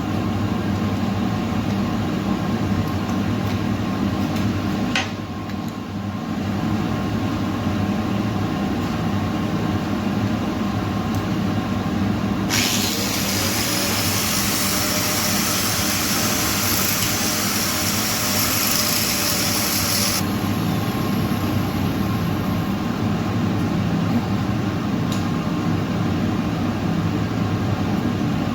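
Steady low machine hum, with an electric welding arc on stainless steel hissing and crackling for about eight seconds in the middle, starting and stopping abruptly.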